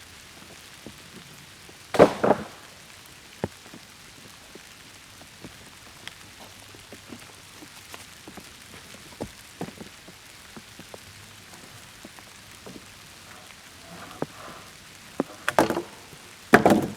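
Rain falling steadily, with scattered drops tapping close by. A few heavy knocks stand out: one about two seconds in and two near the end.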